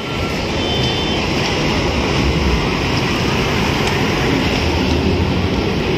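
A heavy container truck driving past close by: a steady noise of its engine and tyres on the road.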